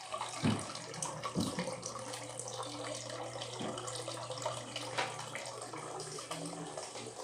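Water running and splashing steadily, with a low steady hum underneath and a few short knocks, the first about half a second in.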